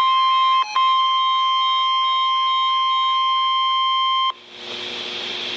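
Weather radio warning alarm tone: a single loud, steady tone near 1 kHz, typical of the NOAA Weather Radio 1050 Hz alert that comes before a warning message. It drops out briefly under a second in and cuts off suddenly about four seconds in, leaving radio hiss.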